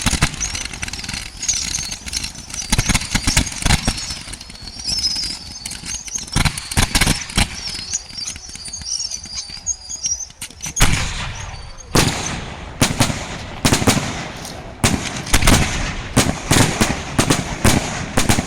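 Aerial fireworks display: shells bursting in a run of sharp, irregular bangs, with a high wavering whistle through the first ten seconds. The bangs come faster and thicker from about eleven seconds in.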